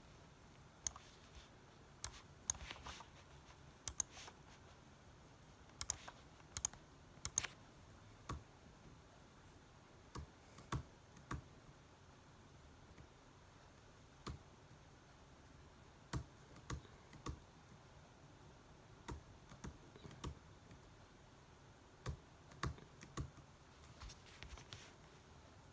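Laptop keyboard being tapped in scattered, irregular keystrokes, single clicks and short clusters with pauses between them.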